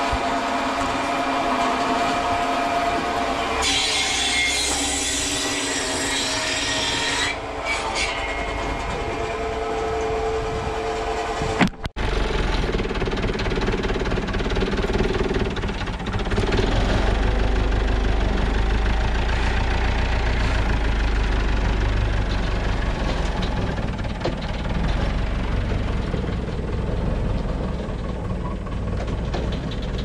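Heavy machinery running steadily, with a sudden change about twelve seconds in from a whining machine sound to a deep, steady engine hum.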